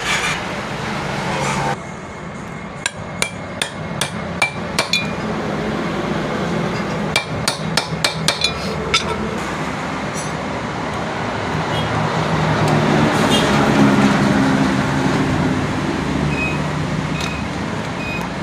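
Sharp metallic taps and clinks of a hand tool striking metal, in two quick runs of about seven strikes each a few seconds apart. Steady background noise swells in the middle, like a passing vehicle.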